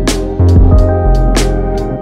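Instrumental background music with sustained notes and a regular percussive beat.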